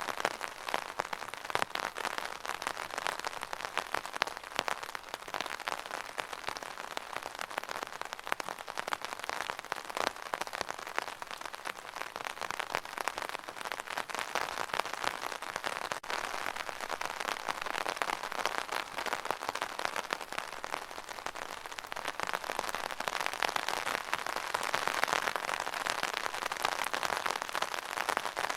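Rain pattering on an umbrella canopy: a dense, steady spatter of countless small drop impacts, swelling a little near the end.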